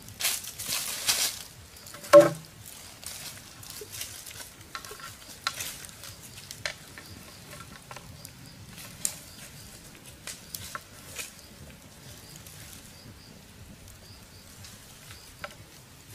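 Small wood campfire crackling with scattered pops and snaps. Near the start there is a loud scraping rush, then one sharp knock with a short ringing tone about two seconds in, as a machete meets a bamboo tube.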